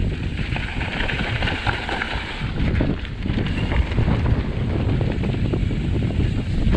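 Mountain bike rolling fast down a dry, dusty dirt trail: tyres running over loose dirt and gravel with many small clicks and rattles from the bike, under steady wind buffeting a chest-mounted GoPro.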